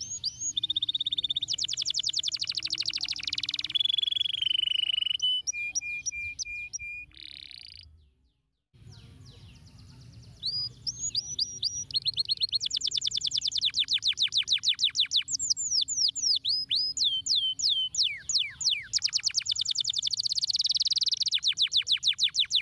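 Domestic canary singing a long song of fast trills and rolling phrases, some notes gliding up or down. The song stops for about two seconds about eight seconds in, then starts again.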